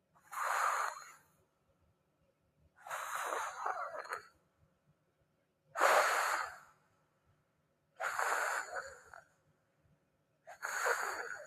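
Snoring: five noisy breaths, each about a second long, coming regularly every two to three seconds.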